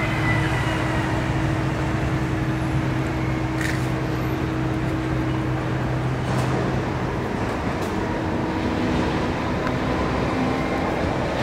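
Steady road traffic noise with a low engine hum, which drops away about seven seconds in.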